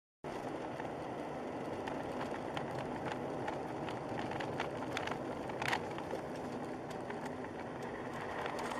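Steady road and engine noise of a car driving on a snow-covered road, heard from inside the cabin, with scattered light clicks and one louder tick a little past halfway.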